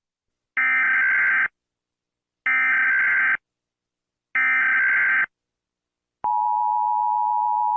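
Emergency Alert System tones: three identical short bursts of SAME header data tones, about two seconds apart, then the steady two-tone EAS attention signal starting about six seconds in.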